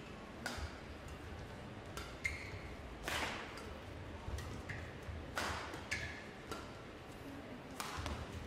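Badminton rally: rackets striking the shuttlecock in a string of sharp hits, about one a second, with short squeaks of shoes on the court mat in between.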